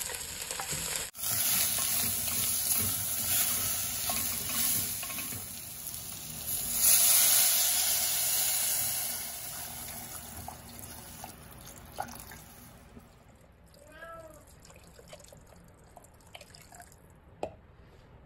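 Water poured into a hot pot of sautéed vegetables, a splashing, hissing pour that swells to its loudest partway through and then fades away over several seconds. Just before it, a wooden spatula briefly stirs the vegetables.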